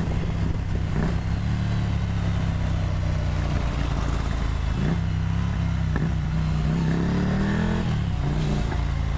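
Ducati Monster 797's 803 cc two-cylinder engine running under way. Its note shifts briefly a few times and climbs, then drops back, near the end as the throttle is worked.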